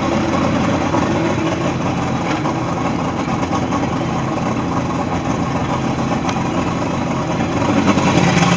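225 hp outboard motor idling steadily on its newly installed SEI lower unit. About 8 seconds in it gets a little louder, with a steady low hum coming in.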